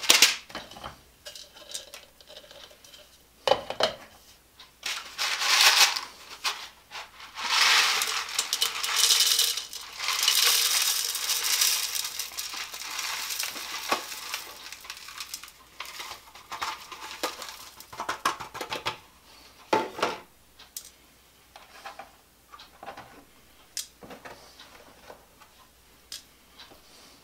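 Small chopped pieces of HDPE bottle caps rattling in a plastic tray and pouring into a plastic blender jar: scattered clicks at first, a long dense rush of rattling through the middle as the pieces tip in, then lighter clicks and knocks toward the end.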